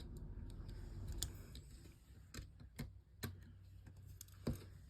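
A few light, irregular clicks and taps as small smartphone parts and tools are handled during reassembly, over a faint low hum.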